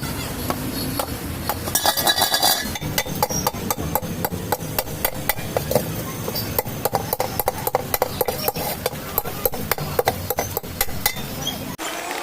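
Rear tyre of a Honda Activa scooter being prised off its wheel rim with two large screwdrivers: a stretch of scraping about two seconds in, then many sharp metal clicks and knocks, several a second.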